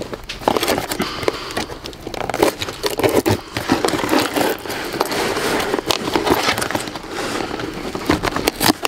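A key's tip sawing and scraping through the tape seal on a cardboard box, making irregular crackling and scraping with many small clicks.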